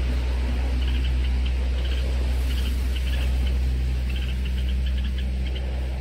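Steady low rumble with short high chirps coming in quick clusters of three or four, over and over.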